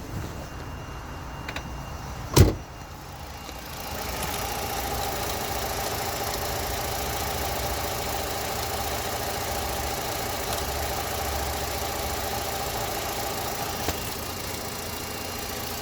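Opel Astra H 1.4 petrol four-cylinder engine running with a knocking from under the engine. There is one sharp loud thump about two seconds in. The engine gets louder about four seconds in and runs steadily, easing a little near the end.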